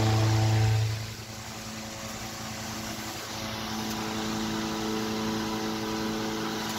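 Antique Century 16-inch electric fan running: a steady motor hum under the rush of air from the spinning blade. About a second in the hum falls away sharply, leaving mostly a steady whoosh of air that slowly grows.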